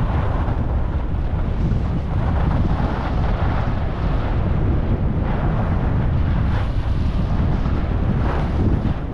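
Wind buffeting an action camera's microphone as a skier goes downhill, a steady low rumble, with skis hissing and scraping over packed snow in swells every second or two as the skier turns.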